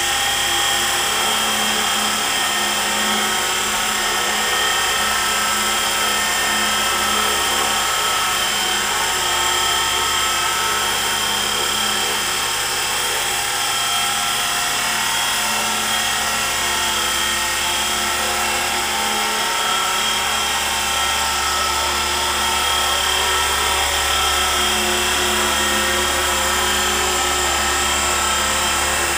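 E-flite SR120 micro RC helicopter in a Bell 412 scale fuselage flying: steady high-pitched whine of its electric motors with the whir of the main and tail rotors.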